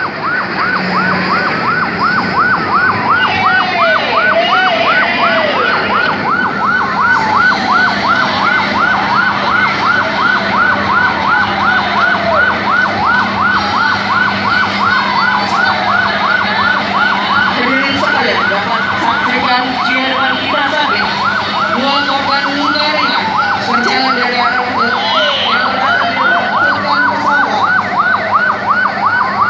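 Emergency vehicle sirens, one from an ambulance: a fast warbling yelp repeating several times a second, overlaid by a second siren whose tone falls in pitch every few seconds.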